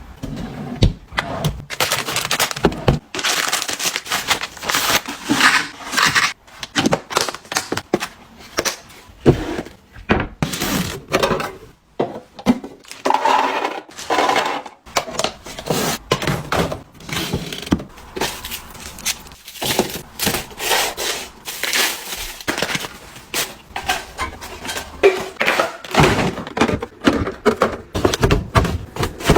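Packaging being handled and opened by hand: a dense run of crinkling, rustling, tearing and small knocks.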